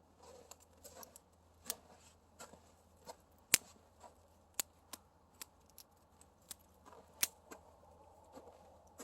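Wood fire crackling, with irregular sharp pops and snaps, one louder pop about three and a half seconds in.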